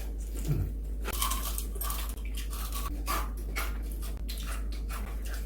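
Close-up chewing and crunching of fried chicken: a run of short, crisp crackles.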